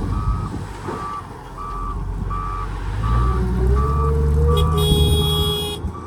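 Reversing alarm on heavy equipment beeping about every 0.8 seconds over a diesel engine that revs up about halfway through and holds under load. A high squeal lasts about a second near the end.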